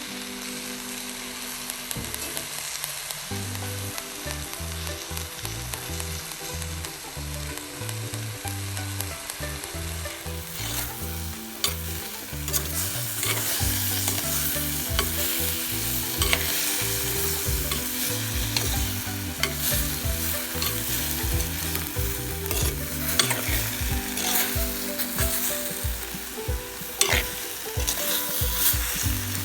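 Devilled chicken sizzling in a frying pan as it is stirred, with a spatula scraping and knocking against the pan. The sizzling grows louder about a third of the way through, and the scrapes come more often after that.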